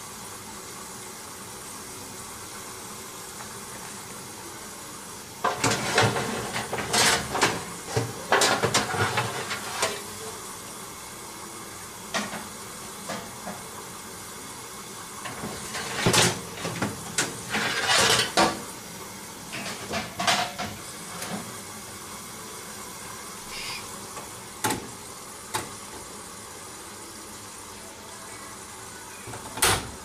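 Hoover Dynamic Next DXA 48W3 front-loading washing machine in its wash phase. A steady hiss runs throughout, and from about five seconds in there are irregular bursts of sloshing and splashing as the drum turns the wet load.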